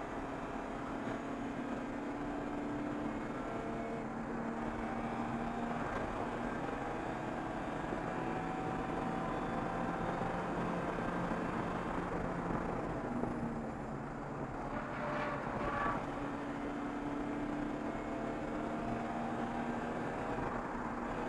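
Race car's engine heard from inside the cockpit, running hard on track. Its pitch climbs steadily and drops sharply at each gear change, several times over.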